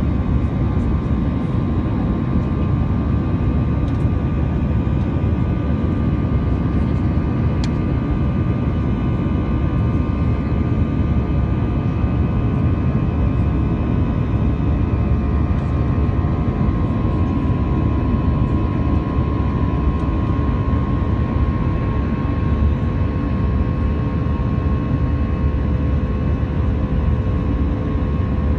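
Airliner jet engines and airflow heard from inside the cabin: a steady, unbroken rumble with a few faint steady tones running through it.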